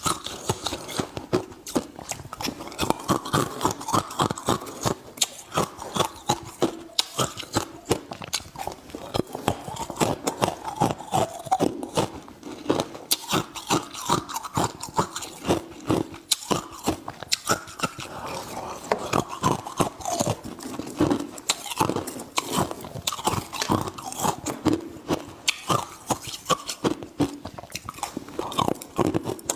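A person chewing ice, a dense run of sharp, rapid crunches as the ice is bitten and ground between the teeth.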